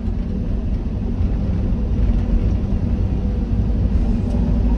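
Excavator's diesel engine running steadily, a low, even rumble.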